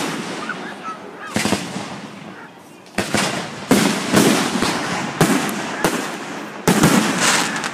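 Aerial firework shells bursting: one bang about a second and a half in, then a quick run of bangs from about three seconds on, each fading away in a rumbling echo.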